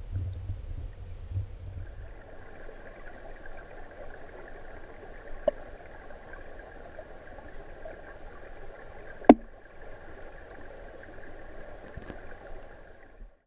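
Stream water rushing, picked up by a GoPro submerged in its waterproof housing. A low rumble in the first two seconds gives way to a steadier hiss. There is a small click about five and a half seconds in and a sharp, louder one about nine seconds in, and the sound cuts off suddenly just before the end.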